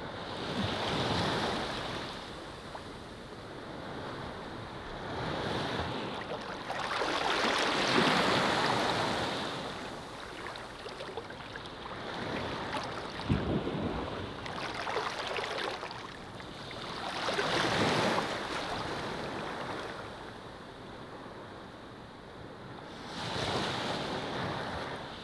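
Small waves washing onto a sandy shore, the surf hiss swelling and fading every few seconds, loudest about a third of the way in and again about two thirds of the way in.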